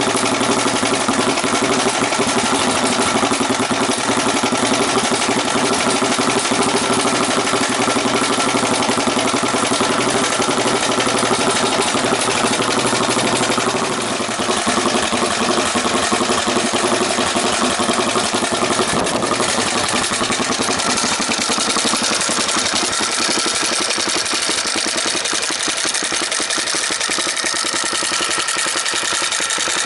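Suzuki DR-Z400SM's single-cylinder four-stroke engine idling steadily through an aftermarket exhaust silencer.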